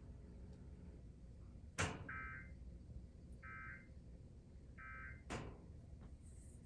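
Emergency Alert System end-of-message tones: three short bursts of SAME data warble, about a second and a half apart, closing the Required Monthly Test. A sharp click comes just before the first burst and another just after the last.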